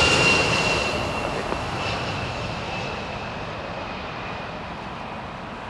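Jet airliner on approach passing by, its engine noise fading away steadily, with a high whine that falls slightly in pitch as it goes.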